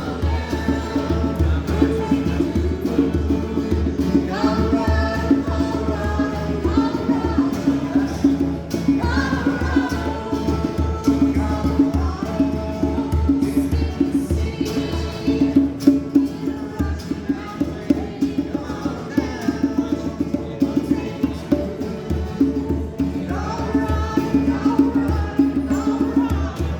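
A group's performance of an indie folk song: voices singing over a steady rhythmic accompaniment with percussion.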